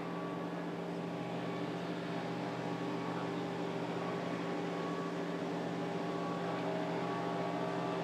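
Steady machine hum, several fixed tones over an even hiss, holding unchanged throughout.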